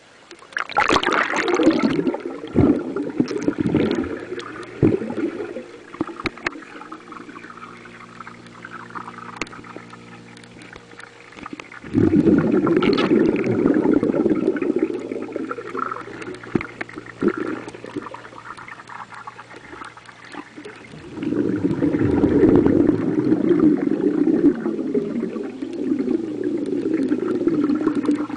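Underwater recording of a man blowing air out through his mouth and nose, with air bubbles bubbling and gurgling up in long bursts near the start, about twelve seconds in, and from about twenty-one seconds to the end. A faint low steady hum comes through between the bursts.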